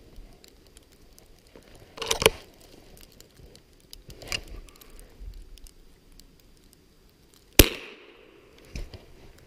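A single sharp crack near the end: a Mossberg single-shot .22 rifle firing a .22 Short round, a report that is low in noise. Earlier come a few softer clicks and rustles of the rifle being handled.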